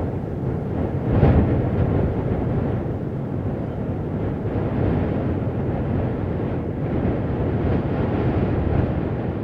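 Steady low rushing noise, with a brief swell about a second in.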